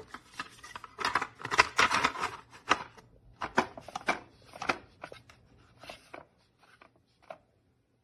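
A dog lapping water from a battery-powered pet water fountain: a quick, irregular run of wet laps and small splashes that is densest at first, then thins out and stops near the end.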